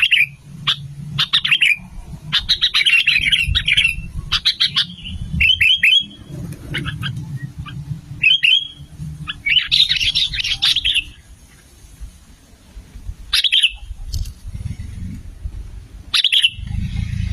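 Sooty-headed bulbul calling: bursts of short, bright chattering notes with pauses between them, over a low rumbling noise.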